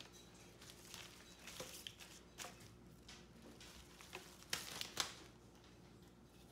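Clear plastic flower wrapping crinkling and cut flower stems and leaves rustling as they are handled, in several short bursts, the loudest about four and a half to five seconds in.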